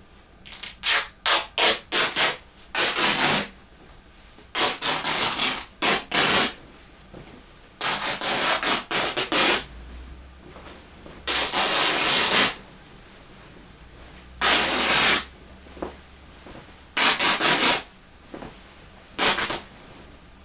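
Fabric being ripped by hand in a series of tears, each a rasping noise: some quick short rips in clusters, others drawn out for about a second.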